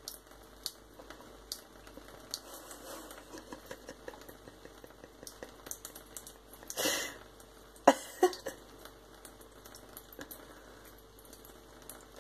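Thin stream of water running from a kitchen tap into a sink, with small irregular ticks and spatters. About seven seconds in there is a brief louder splash, then a few sharp splashes as a cat's head and paw meet the stream.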